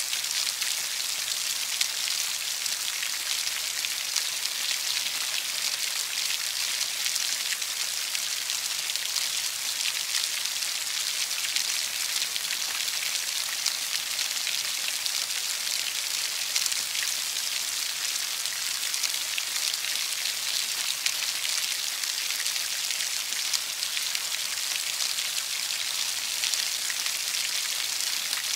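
Steady forest rain falling on leaves: an even, high hiss made of countless small drop ticks, without let-up.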